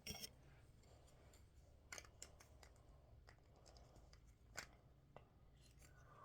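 Faint, scattered clicks and light rustling of plastic Lego pieces being handled and pressed together, with a sharper click about two seconds in and another past the four-second mark.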